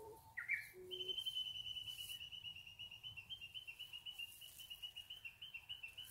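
A bird's faint, rapid, even trill held at one high pitch for about five seconds, starting about a second in after a short rising chirp. A brief hummed note from a woman's voice comes just before the trill.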